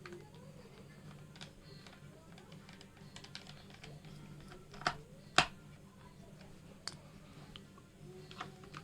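Scattered small clicks and taps from handling the laptop, two sharper ones a little over halfway through, over a low steady hum, with faint background music.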